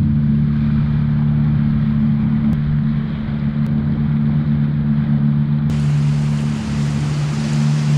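Jet ski engine running at a steady cruising speed, an even low hum that holds its pitch.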